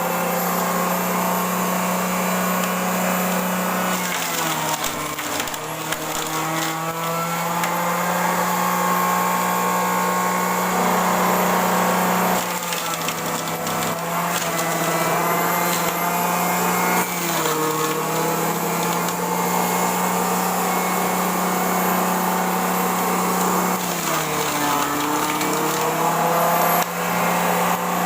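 Small electric kitchen-appliance motor running steadily with a hum. Its pitch sags briefly and picks back up about four times.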